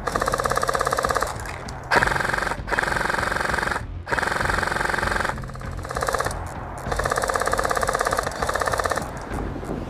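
AK-style airsoft rifle firing full-auto: about seven bursts of a fast, even mechanical rattle, each up to about a second and a half long, with short pauses between them.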